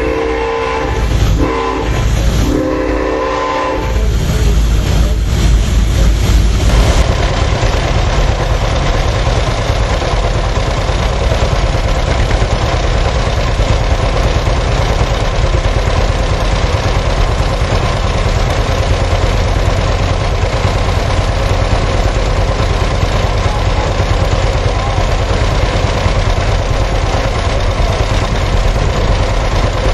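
A locomotive's multi-tone steam whistle blows several short blasts. About seven seconds in the sound changes to the steady, even running of threshing machinery.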